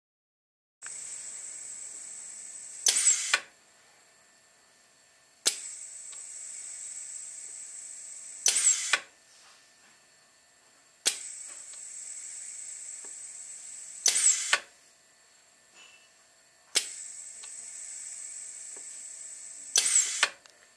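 Air-cylinder-driven resuscitator-bag ventilator prototype cycling, about four breaths, one every five to six seconds. Each stroke starts with a sharp click and about three seconds of steady air hiss while the ram squeezes the Ambu bag, then ends with a loud burst of air as it releases.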